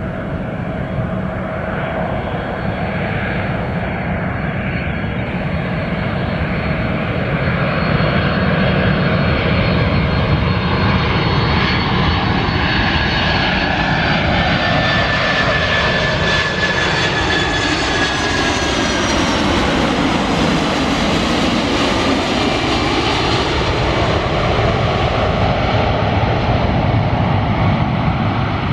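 Boeing 747-400's four turbofan engines on final approach, passing close by: a loud, steady jet roar with high fan whines. The roar swells over the first several seconds, and its tone sweeps down and back up about two-thirds of the way through as the jumbo passes.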